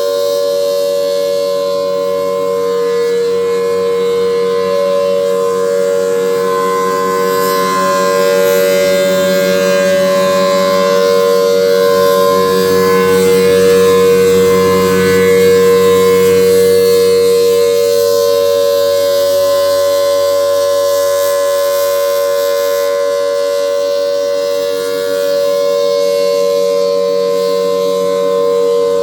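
Federal Signal Thunderbolt 1000T outdoor warning siren sounding its test, a loud steady siren tone held at a level pitch, growing louder toward the middle and dipping briefly near the end.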